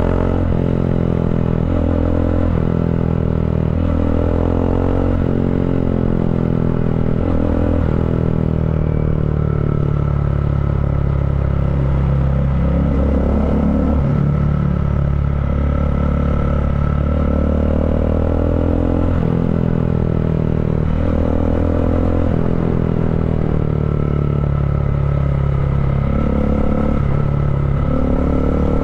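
Bajaj Dominar 400's single-cylinder engine running through an Akrapovic-style slip-on muffler, with the catalytic converter replaced by a resonator, under way at moderate road speed. The exhaust note rises and falls in pitch as the throttle changes.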